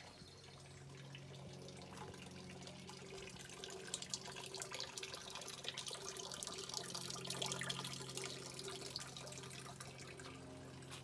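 Water pouring from a bamboo spout into a glazed ceramic pot fountain, a steady trickle and splash. It grows louder in the middle and then fades, over a low steady hum.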